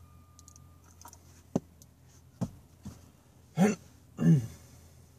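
A man's two short vocal sounds, each dropping in pitch, about three and a half and four and a half seconds in, after a few light clicks of handling. A faint high steady tone sounds for about the first second.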